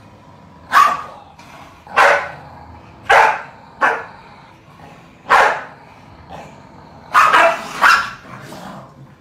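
Corgi barking at the other corgi in a squabble over a toy: about seven single barks, a second or so apart, with two close together near the end.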